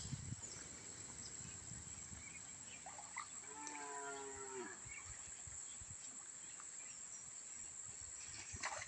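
A cow mooing once, faintly, for about a second a few seconds in.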